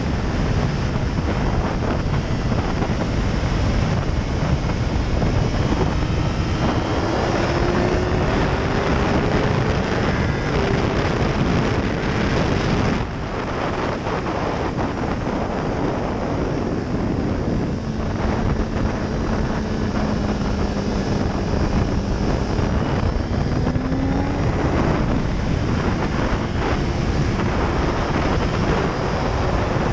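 Heavy wind rush over the microphone with the BMW S1000RR's inline-four engine running at speed underneath. The engine's pitch climbs slowly, the sound drops abruptly about thirteen seconds in, then rises again later on.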